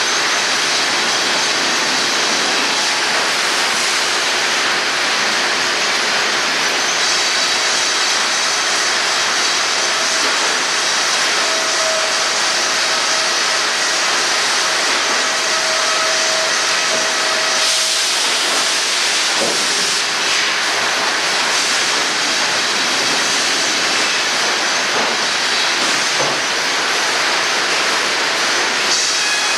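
Sawmill machinery running: a loud, steady, hissing din with faint whining tones over it, one of which comes and goes in the middle.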